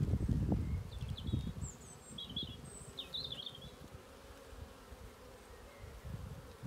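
Honeybees buzzing around an open hive as its frames are worked, a faint steady hum, with a low rumble of handling in the first second or so.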